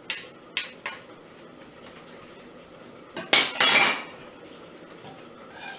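Metal spoons clinking against a stainless steel pot and metal bowl while serving boiled neck bones: three sharp clinks in the first second, then a louder clatter lasting under a second about three seconds in.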